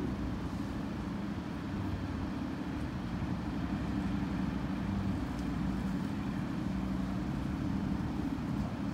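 Steady low engine rumble of idling or slow-moving vehicles, with a constant low hum and no sharp events.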